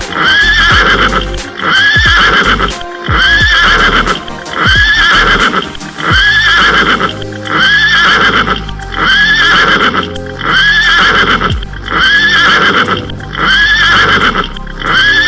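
Electronic dance music built on a short horse-whinny sample looped about every second and a half, over a beat with deep falling bass hits.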